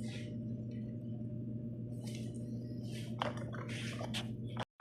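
Scattered light clicks and scrapes of BMX bike parts and small hardware being handled during disassembly, over a steady low hum. The sound cuts out abruptly near the end.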